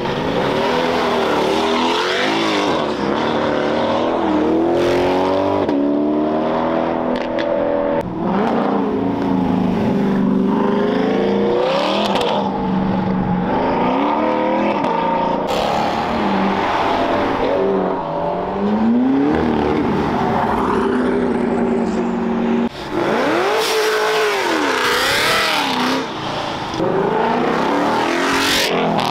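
Several performance cars accelerating hard past, one after another. Each engine's pitch climbs and drops back at the gear changes, and the sound changes abruptly a few times as one car gives way to the next.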